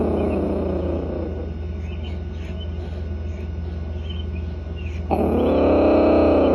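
Bobcat kitten growling: a long drawn-out growl trails off during the first second, then a second growl starts about five seconds in and rises and falls in pitch.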